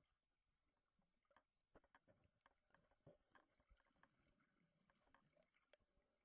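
Near silence underwater: a faint hush with scattered, irregular faint clicks and crackles, thickest in the first half.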